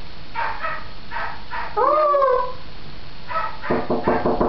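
African grey parrot vocalizing: a few short calls, a loud whistle that rises and falls about two seconds in, then a quick run of clicks near the end.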